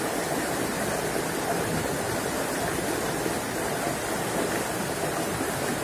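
Shallow rocky stream flowing over stones: a steady, even rush of running water.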